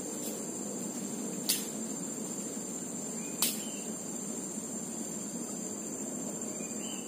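Insects, likely crickets, shrilling in one steady high-pitched tone, with a few sharp clicks, the clearest about one and a half and three and a half seconds in.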